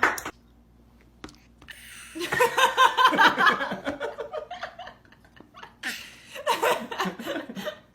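People laughing, starting about two seconds in, then a short pause and another round of laughter near the end.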